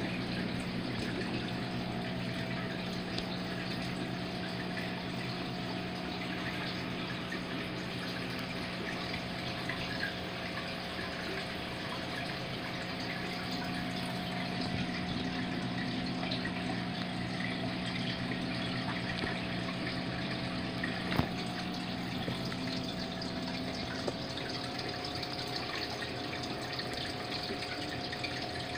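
Aquarium water trickling and splashing steadily from the pump-driven circulation, with a low steady pump hum under it that stops a few seconds before the end. One brief click about three quarters of the way in.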